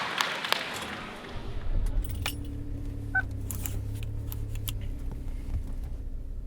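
Car keys jangling and clicking, with a car engine's low, steady hum coming in a little over a second in.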